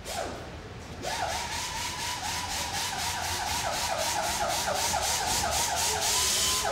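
Edited intro sound: a short whoosh, then an electronic warbling tone over a fast ticking beat of about five ticks a second that grows steadily louder.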